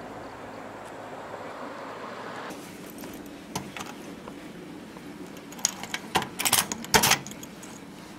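A steady outdoor hum for the first couple of seconds, then a string of sharp clicks and clacks from a metal shoe locker, its door and key lock being worked. The clicks are loudest about three-quarters of the way in.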